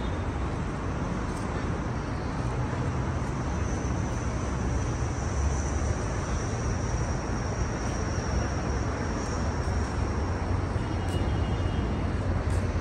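Steady outdoor background noise with a deep rumble, and a faint high whine that slowly falls in pitch midway.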